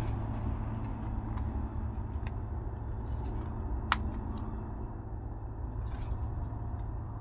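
Daikin inverter heat pump outdoor unit humming steadily during its defrost cycle, slowly getting quieter, with a single sharp click about four seconds in.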